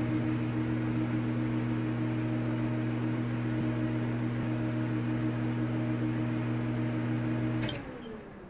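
Electronic soundtrack ending on a held low synthesizer chord, a steady drone of a few tones that stops with a faint click near the end and fades away.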